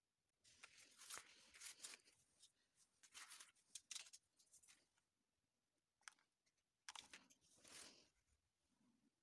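Faint handling noise: light clicks and scrapes of wooden popsicle sticks being moved and fitted on a tabletop, in two spells with a short quiet gap between.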